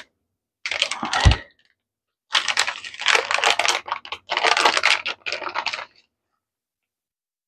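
Plastic bag of shredded mozzarella crinkling and rustling in bursts as the cheese is shaken and sprinkled out of it, with a dull thump about a second in.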